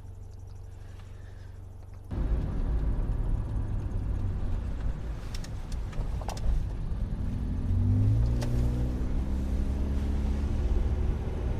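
A car heard from the inside: a low steady hum for about two seconds, then it cuts suddenly to louder engine and road rumble as the car drives. A little past the middle the engine note rises as it accelerates.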